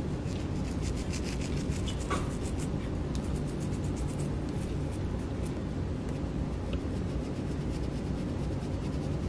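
Pepper grinder grinding black pepper over zucchini halves: a dry rasping crackle of rapid small clicks, densest in the first three seconds and sparser after, over a steady low hum.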